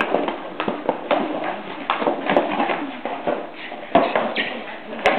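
Two terriers, one a Lakeland terrier, playing with a cardboard box: the box scraping and knocking as it is pulled about, with claws clicking on a tile floor in quick, irregular clicks.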